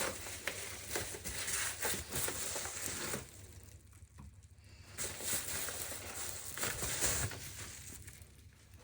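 Crinkling plastic and rustling cardboard as a new power supply is lifted out of its box and packaging, in two spells of irregular crackles with a quieter pause about three seconds in.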